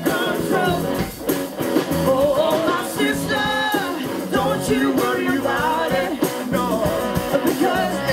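Live rock band playing: electric guitars and drum kit, with a male and a female singer.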